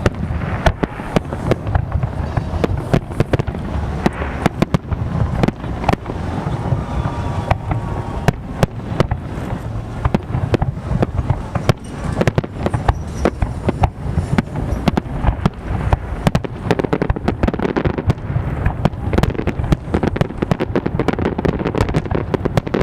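Fireworks display going off: a dense, irregular run of bangs and crackles, several a second, over a continuous low rumble.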